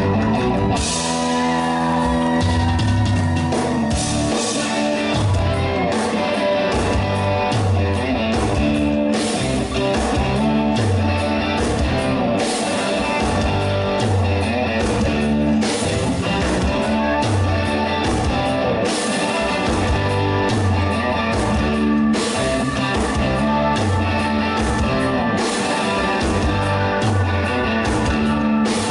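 Live rock band playing an instrumental passage: electric guitars over a repeating bass line and a drum kit.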